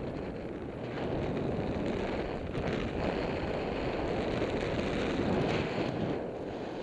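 Rush of airflow buffeting the microphone of a tandem paraglider gliding in flight, swelling and easing a little.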